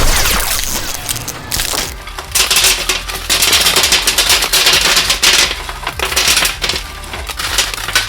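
Rapid electrical crackling and snapping inside a running microwave oven, coming in dense bursts over the oven's steady low hum, as if sparks are arcing in the cooking cavity.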